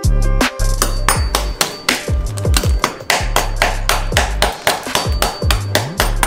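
Rapid sharp knocks, about five a second in an even rhythm, over music with a deep bass and thumping beat.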